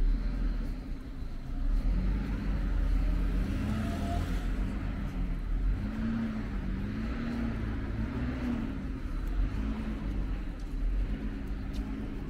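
Road traffic on a city street: motor vehicles passing with a steady low rumble and a wavering engine hum through the middle.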